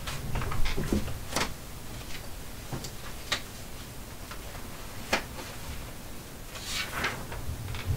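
Sheets of sketch paper being handled and laid on a wooden desk: soft rustling with scattered light taps, the sharpest about five seconds in.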